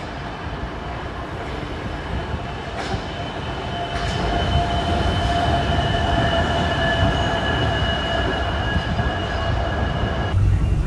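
Wuppertal Schwebebahn suspended monorail train running on its overhead steel rail: a rumble with a steady whining squeal from the steel wheels, growing louder about four seconds in.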